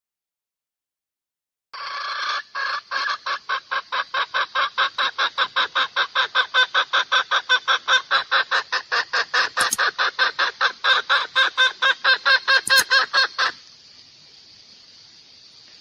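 Hen clucking in a fast, even run of about five clucks a second for roughly twelve seconds, stopping abruptly near the end. It is a hen's call of the kind played to lure a rooster.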